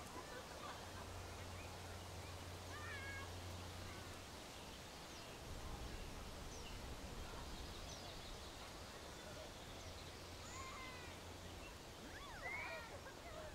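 Faint countryside soundscape: scattered short bird chirps and calls over a steady background hiss, with a low hum underneath. A slightly louder call comes near the end.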